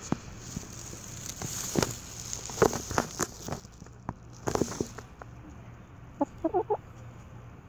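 Dust-bathing hens clucking softly in short, scattered calls, with a quick run of wavering notes about six seconds in.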